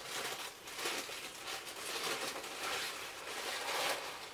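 Tissue paper rustling and crinkling as a wrapped bath bomb is unwrapped and handled.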